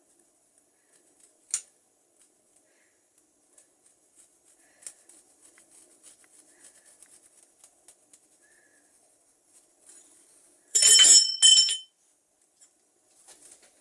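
Workshop handling sounds: faint scattered taps and light scrapes, then two short, loud scraping bursts with a metallic ring about eleven seconds in.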